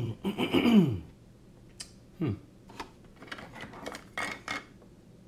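Scattered clicks and light clatter of small hard objects being moved about on a workbench during a search for a misplaced item. A short mumble comes in the first second and another brief vocal sound about two seconds in.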